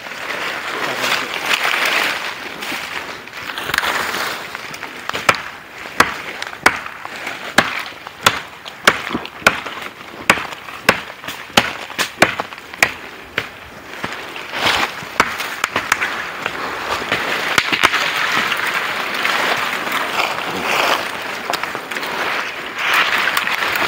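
Parang (machete) chopping at the base of a slender tree trunk: a run of sharp strikes, about two a second, from about five seconds in to about thirteen seconds in, over a steady background hiss.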